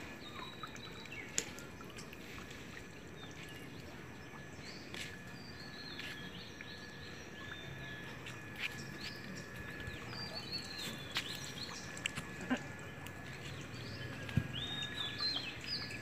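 Birds chirping off and on, short calls that rise and fall in pitch, over steady background noise with a few scattered clicks.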